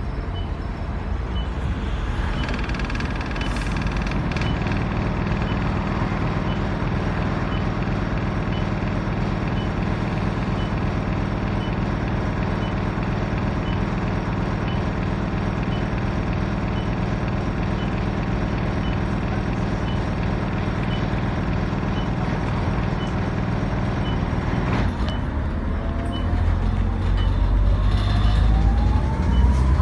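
Optare Solo single-deck bus's diesel engine heard from inside the saloon, idling steadily while stationary, with a faint regular tick about once a second. Near the end the engine note grows louder and rises as the bus pulls away and accelerates.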